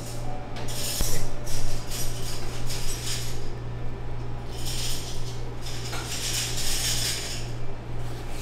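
Kitchen food preparation: handling with light clinks of utensils and dishes, heard as repeated short bursts of rustling and scraping over a steady low hum.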